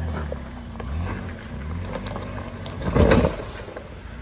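Jeep Wrangler's V6 engine working at low revs as it crawls up a rocky slope, its pitch rising and falling with the throttle. A short, loud burst of noise about three seconds in.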